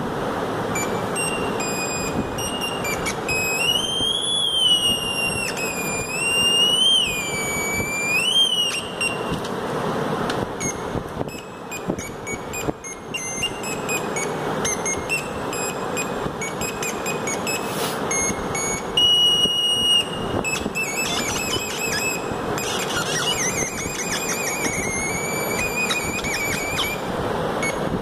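Electronic tones from a small loudspeaker driven by a Drawdio-style pencil circuit, over a steady hiss. The pitch slides up and down and breaks off as the graphite pencil and clip touch the pencil-drawn lines, since the graphite path sets the pitch. There is one steady held tone about two-thirds of the way in, and a fast warble near the end.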